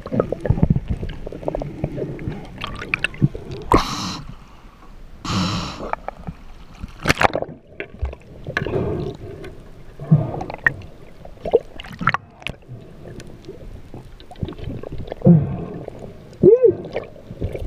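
Muffled underwater sound picked up by an action camera while spearfishing: irregular gurgling and sloshing water with scattered clicks and knocks, and two short hissing rushes about four and five and a half seconds in.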